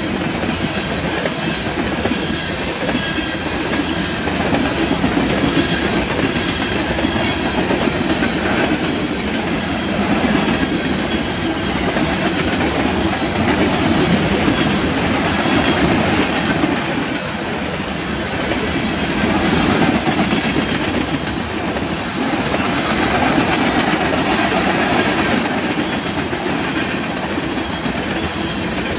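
Covered hopper cars of a freight train rolling past close by: a steady rumble of steel wheels on rail with a clickety-clack over the rail joints, swelling and easing slightly as the cars go by.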